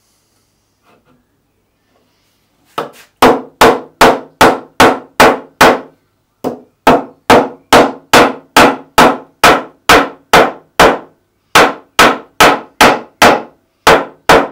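Small brass-headed hammer striking a stack of cut fret wire pieces on a metal-topped block, sharp ringing metal taps at about two and a half a second. The tapping starts about three seconds in and comes in three runs with brief pauses.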